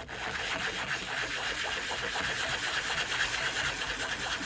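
A small motorized sanding tool running steadily against a 3D-printed PLA shell, grinding it flat.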